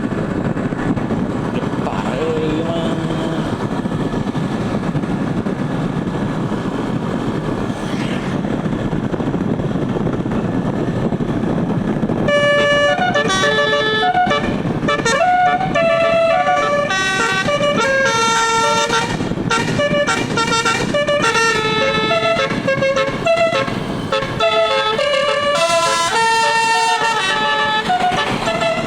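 A steady low rumble. About twelve seconds in, a tour bus's 12-note telolet musical air horn starts playing a quick melody of stepped notes that jump from pitch to pitch.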